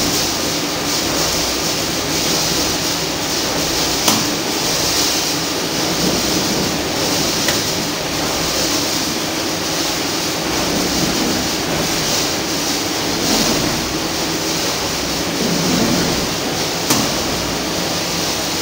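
Horizontal flow wrap packing machine running steadily, its motor and film-feed mechanism giving an even mechanical noise, with a sharp click about four seconds in and another near the end.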